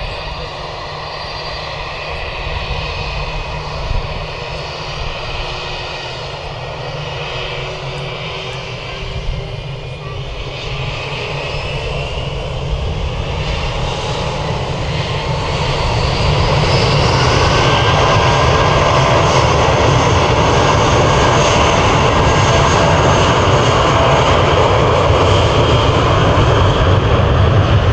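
Airbus A320 airliner's jet engines running on the runway, their whine rising in pitch and the sound growing louder about halfway through as they spool up for the takeoff roll, then holding a loud, steady rumble and whine.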